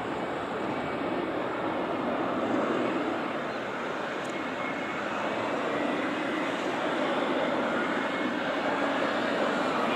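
Four-engine Airbus A340 jetliner passing overhead: a steady jet engine rumble with a faint whine that falls in pitch near the end.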